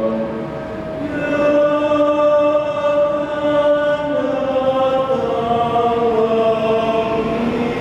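Mixed choir of men and women singing slow, sustained chords. The sound thins briefly at the start, then a new full chord comes in about a second in, and the voices move through long held notes.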